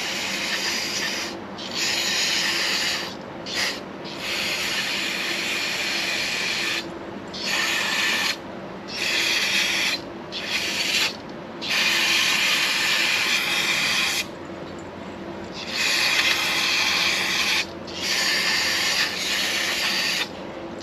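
Aerosol carb and choke cleaner hissing out in repeated bursts of one to three seconds with short breaks, sprayed into a generator casing to wash out crud that is making it spin slowly.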